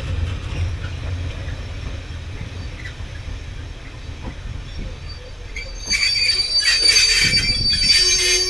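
Train running on the rails with a low rumble that fades away, then, about six seconds in, loud high-pitched wheel squeal lasting a couple of seconds and stopping sharply.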